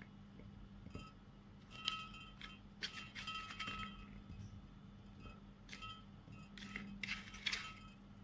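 Raw potato and carrot slices being set down in a glass Pyrex baking dish, clinking and tapping against the glass in a few small clusters, each tap leaving a brief ring.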